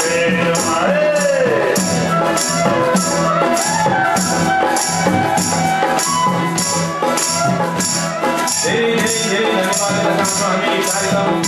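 Live Nepali folk music: bamboo bansuri flutes playing gliding melody lines over a harmonium, with a jingling percussion beat at about two to three strokes a second.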